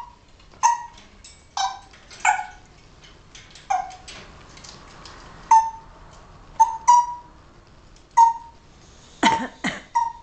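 African grey parrot giving a series of short, sharp calls, about a dozen, spaced unevenly from half a second to a second and a half apart.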